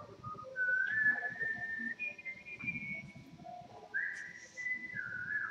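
A person whistling a slow tune: clear single notes, each held about a second, stepping up and down in pitch, with a rising slide into a note about four seconds in.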